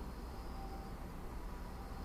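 Suburban outdoor ambience: a steady low rumble with an insect's thin, high trill repeating in short held phrases about every couple of seconds.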